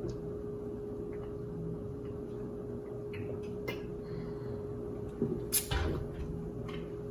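People chugging Pepsi from 1-liter plastic bottles: quiet swallowing and bottle-handling noises over a faint steady hum, with a few louder knocks or crinkles a little past the middle.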